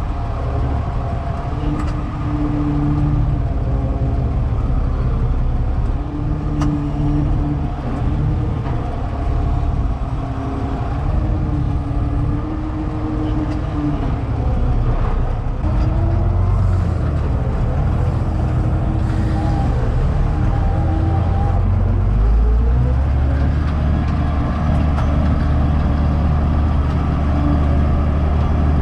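Case tractor engine running steadily under load while pulling a seed drill across the field, heard from inside the cab. The drone grows a little louder about two-thirds of the way in.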